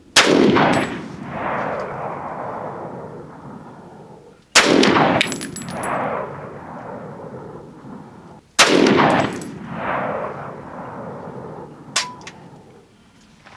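Three rifle shots from a Saiga .308, Hornady 178-grain .308 loads, fired about four seconds apart, each followed by a long rolling echo. A smaller click with a short tone comes near the end.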